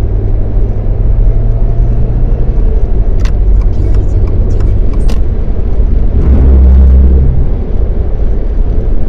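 Car driving: a steady low engine and road rumble, with a few sharp clicks in the middle and a deeper swell about six seconds in.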